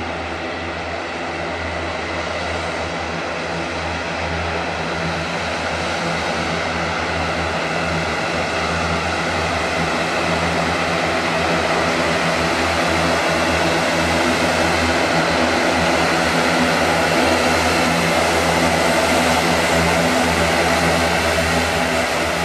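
Dornier 328-100's twin turboprop engines running at taxi power: a steady low propeller hum under a turbine hiss, growing gradually louder as the aircraft approaches.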